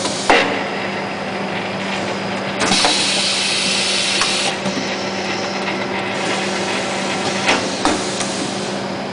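OMAC leather-belt production line machinery running with a steady hum and sharp clunks of its moving mechanisms. About two and a half seconds in, a hiss of compressed air lasts about two seconds, then fades.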